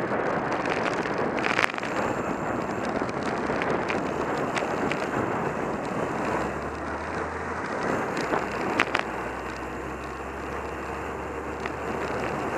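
Wind rush on the microphone and road noise from a moving bicycle in traffic, with a few sharp clicks. From about six seconds in, the steady low rumble of a cement mixer truck's diesel engine joins.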